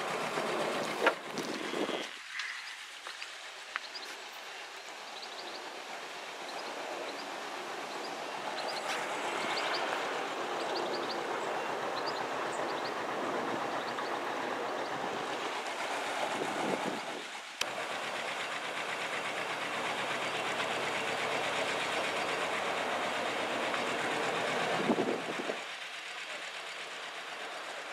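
Narrowboat engine running steadily under way, a rhythmic mechanical chugging. The sound changes abruptly about 2 seconds in, again past halfway and near the end.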